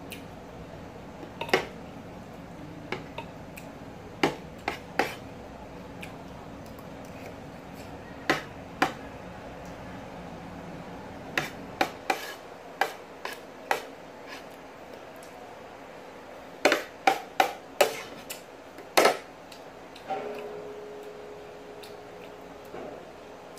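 Metal spoon clinking and scraping against ceramic plates while eating: irregular sharp clinks, some in quick runs of three or four, with one hit near the end that rings on briefly.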